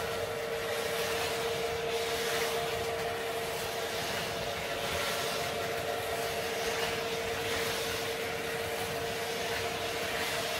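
Lionel O-scale model train and Carrera Go 1:43 slot cars running together: a steady rolling rumble with an even motor whine over it.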